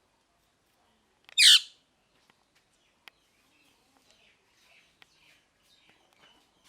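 Pet ringneck parakeet giving one loud, harsh screech about a second and a half in, followed by faint, scattered soft chirps and clicks.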